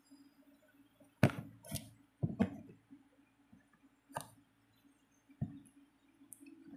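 A painted plastic bottle being handled and turned, knocking sharply against a hard surface about six times, over a faint steady low hum.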